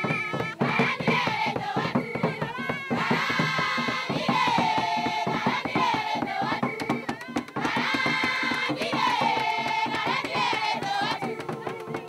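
A group of women singing a folk song together, with rhythmic hand clapping. The sung phrases repeat every couple of seconds and dip in pitch at their ends.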